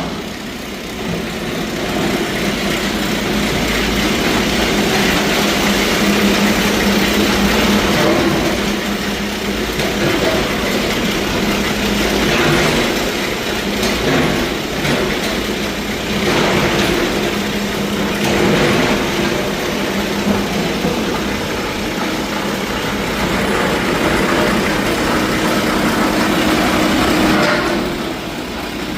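Small hydraulic rock drill boring into bedrock: a loud, continuous mechanical drilling noise with a steady engine hum under it.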